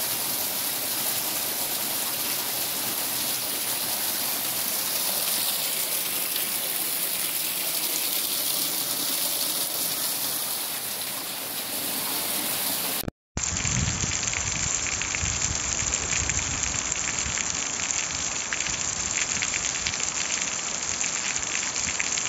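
Heavy rain with a thick stream of runoff gushing off a roof edge, more water than the gutter can carry. About 13 seconds in the sound cuts off for a moment and gives way to steady heavy rain.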